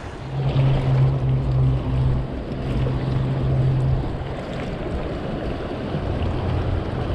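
Shallow mountain stream rushing over rocks, a steady wash of water sound. A loud low hum runs through the first few seconds, weaker again near the end.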